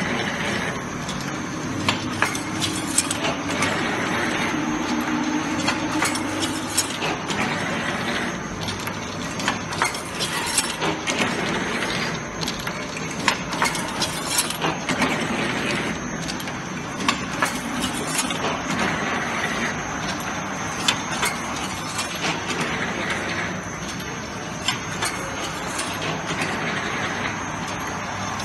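CNC galvanized wire hanger making machine running: a steady mechanical clatter with frequent, irregular sharp clicks and clanks as it forms wire into hangers.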